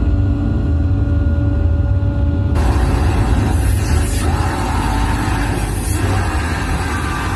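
Harsh noise music played live on a table of effects pedals: a dense low rumble with steady tones. About two and a half seconds in it switches abruptly to a full wall of harsh hiss and screech.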